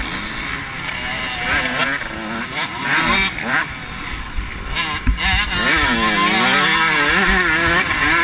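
KTM motocross bike's engine revving up and down hard as the rider works the throttle, the pitch rising and falling repeatedly and climbing to high revs from about five seconds in. A few thumps come just before, with wind noise on the microphone.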